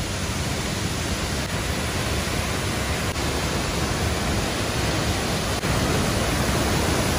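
Waterfall rushing steadily, growing a little louder over the few seconds.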